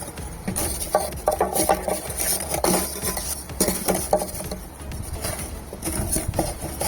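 Lumps of charcoal clinking and rattling in a metal grill in irregular short knocks as they are shifted by hand.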